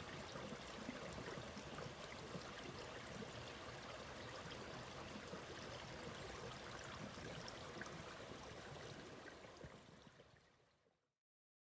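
Water of a stream running steadily, fading out near the end.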